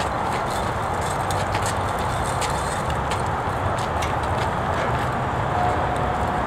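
Steady low vehicle engine rumble with scattered light clicks and rattles from a heavy caster cart of wrapped partition panels rolling over pavement. A steady whine comes in near the end.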